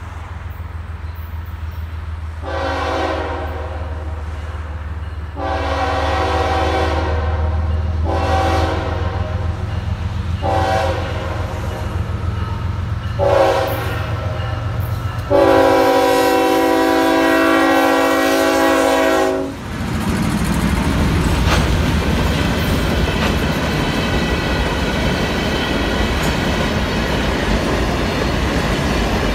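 Diesel freight locomotive's multi-tone air horn sounding about six blasts over the low rumble of its engine, the last blast the longest and loudest: the warning signal for a grade crossing. About twenty seconds in the horn stops and the locomotive passes close by, followed by the steady rolling clatter of hopper cars.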